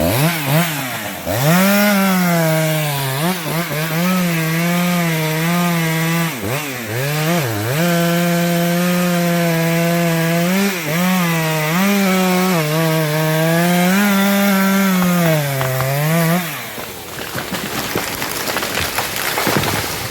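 Two-stroke chainsaw running at high speed while cutting wood. Its pitch sags and recovers several times under load, with a couple of deeper dips around six to seven seconds in. The engine drops off about three-quarters of the way through.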